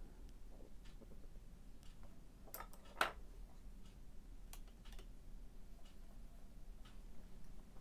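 A few scattered light taps and clicks of painting tools being handled, the loudest a sharp click about three seconds in.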